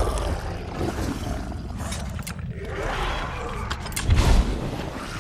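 Animated-film dragon sound effects: rushing, creaking noise with a growling roar, and a heavy low thump about four seconds in.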